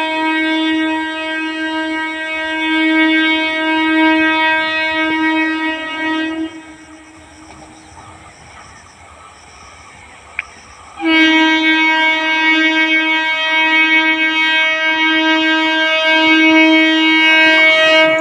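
Electric multiple unit (EMU) train's horn sounding two long, steady blasts as the train approaches: the first lasts about six seconds, and the second starts a little past the middle and is still sounding at the end. Between the blasts there is only a much quieter stretch of running noise.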